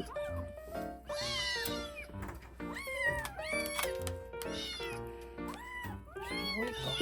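Kittens meowing repeatedly in high, arching calls, about one a second, over light background music.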